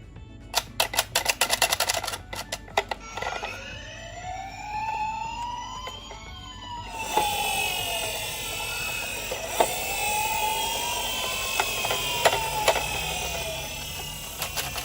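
Toy ambulance minicar's siren wailing, slowly rising and falling twice. A rapid run of clicks comes before it, in the first couple of seconds, and a steady hiss joins about halfway through.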